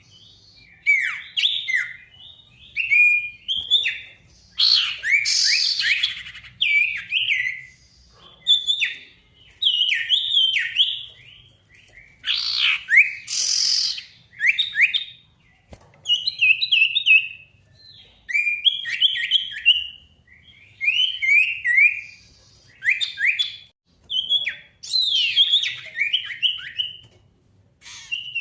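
A sirtu songbird singing in repeated short bursts of quick, sweeping chirps, a phrase every second or two. Twice it gives a longer, harsher call.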